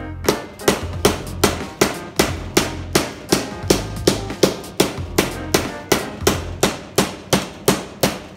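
Hand hammer striking the edge of a sheet-metal quarter panel clamped over a wooden former, in steady blows about three a second, gradually breaking the edge over into a lip.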